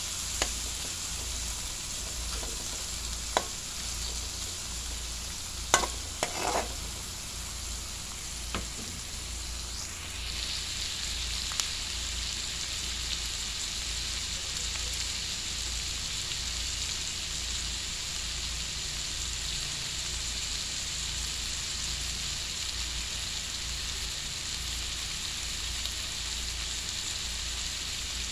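Chicken, sausage, onion and chili sautéing in oil in a metal pan, sizzling steadily, with a few sharp clicks and scrapes of a metal spatula in the first dozen seconds. The sizzle grows stronger from about ten seconds in.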